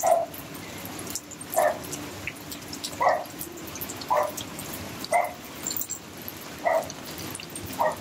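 A dog barking in short single barks, about seven of them, roughly one every second or so.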